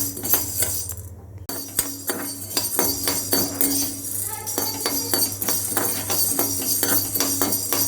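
Dry black peppercorns rattling and scraping in a hot pan as they are stirred during dry-roasting: a dense, irregular run of sharp clicks over a steady low hum.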